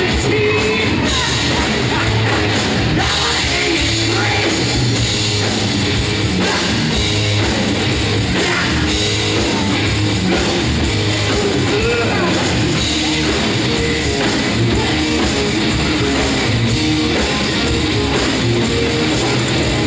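Loud, continuous rock-style stage-show music with drums and a steady heavy beat.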